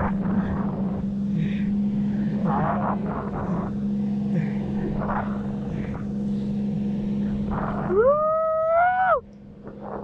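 Motorboat engine running with a steady hum, with scattered short voices. Near the end, a long high call rises, holds for about a second and cuts off.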